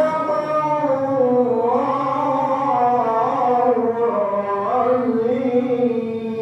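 A man's high voice reciting the Quran in melodic tilawah style, winding through ornamented turns and then holding one long steady note near the end.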